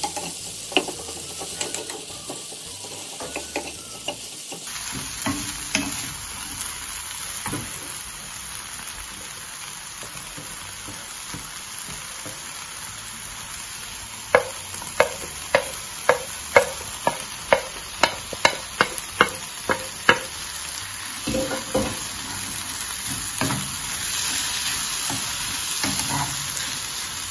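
Chopped spinach, onions and carrots sizzling in oil in a frying pan while being stirred with a wooden spatula. About halfway through comes a quick run of about a dozen knocks of the spatula on the pan, about two a second.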